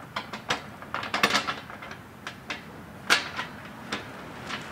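Irregular clicks and knocks of small hardware being handled while bolts and washers are fitted into the bottom of a deer feeder's spinner housing, with one louder knock about three seconds in.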